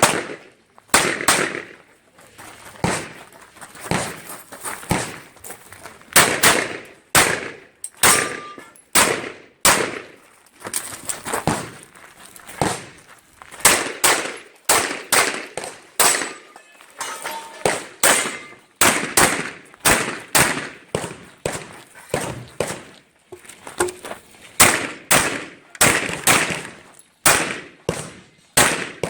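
Rapid pistol gunfire from an Open-division Glock: a long string of shots, often in quick pairs, with short pauses between groups, each shot ringing off briefly.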